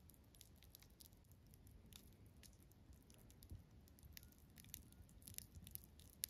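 Faint campfire crackling: scattered small snaps and pops over a low rumble, with one sharper snap near the end.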